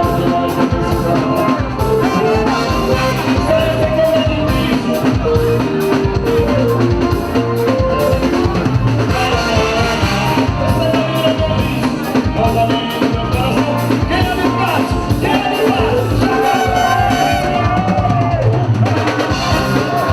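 Forró band playing live: a drum kit keeps a steady beat under singing and melody lines.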